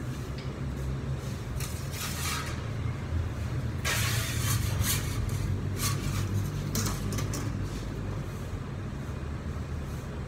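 Steady low hum of kitchen machinery, with several short scraping and rustling sounds, the loudest about four seconds in, as a metal pizza peel is slid across a marble counter and tray under a stretched pizza base.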